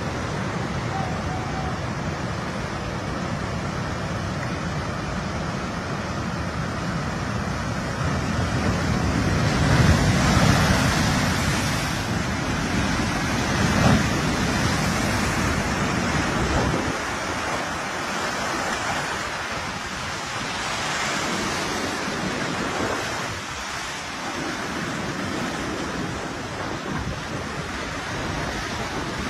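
Tsunami seawater rushing and surging over flooded shoreland. It swells as a breaking wave crashes through, loudest about ten and fourteen seconds in, then eases to a steadier flow.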